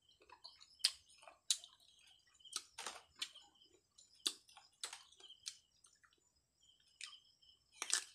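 Close-up chewing of crisp unripe Indian mango slices: about nine sharp crunches and wet mouth smacks at uneven intervals.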